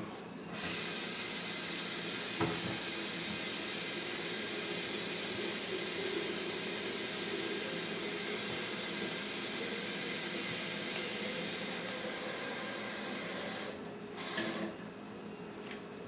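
Kitchen faucet running steadily into the glass carafe of a Bodum Santos electric vacuum coffee maker, filling it with 12 cups of water. The flow stops about 14 seconds in, followed by a few light handling sounds.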